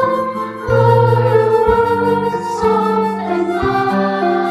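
Children's choir singing a slow, gentle song over low, sustained accompaniment notes that change about once a second.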